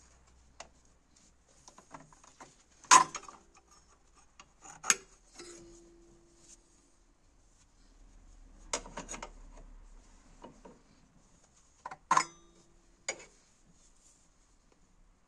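Sharp metal clinks and knocks from parts and tools being handled as the EGR valve is worked off the engine, about five distinct strikes, a few of them ringing briefly, with light rubbing between.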